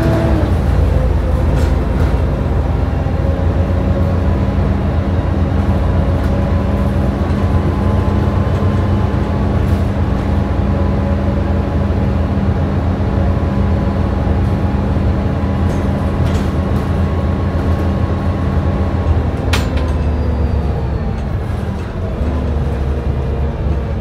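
Volvo B7TL double-decker bus under way, heard from the upper deck: the diesel engine and drivetrain run with a steady low drone and a whine above it. Near the end the whine drops away and the sound eases as the bus comes off the power, and there is a single sharp rattle-click shortly before.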